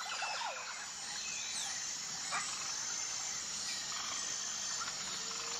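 Tropical rainforest ambience: a steady high-pitched insect drone with scattered short chirping calls, one sharper call about two and a half seconds in.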